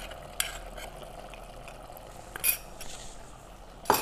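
A spoon tapping against a small bowl a few times while turmeric powder is tipped out of it: a light tap about half a second in, a louder clink midway, and another sharp tap just before the end.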